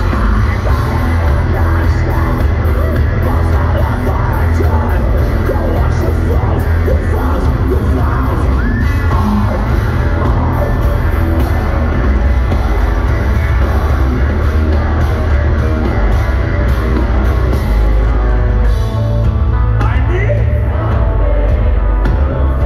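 Heavy metal band playing live at full volume: distorted electric guitars, bass and drums, with a harsh sung vocal over them, as heard from within the concert crowd.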